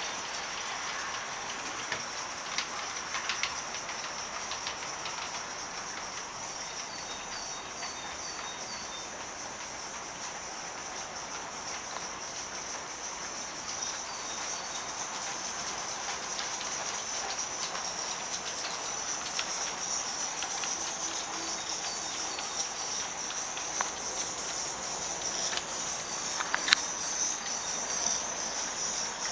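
Gauge 1 live-steam model of a BR Standard Class 4MT tank locomotive running with a light freight train: rapid soft exhaust beats and steam hiss, growing louder as it comes closer, with a few light clicks from the wheels on the track.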